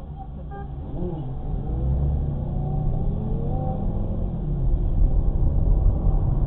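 Traffic heard from a moving car: low engine and road rumble that grows louder as the vehicles pick up speed, with faint rising and falling engine tones as engines rev.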